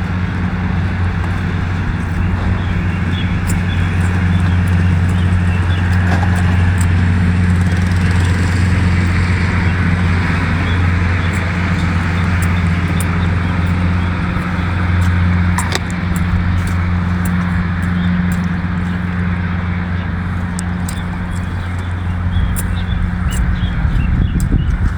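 An engine running steadily with a low drone, joined later by scattered sharp clicks and crunches.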